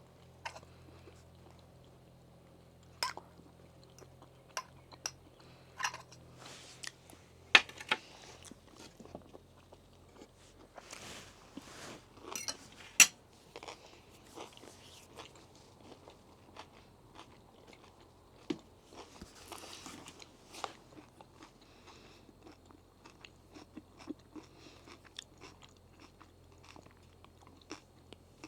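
Someone eating crunchy salad: chewing and crunching, with scattered sharp clicks and knocks, the loudest about eight and thirteen seconds in.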